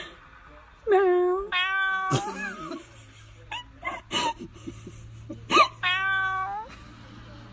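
Domestic cat meowing, several drawn-out calls that bend up and down in pitch, the longest near the end.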